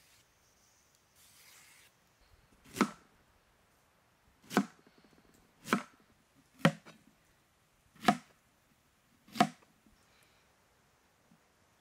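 Six separate chopping strikes of a blade, spaced about one to one and a half seconds apart, each sharp and short.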